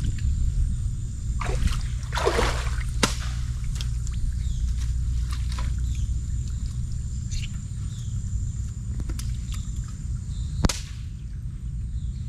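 Water sloshing, with a swishing sound about two seconds in and a few sharp knocks, the loudest near the end, over a steady low rumble.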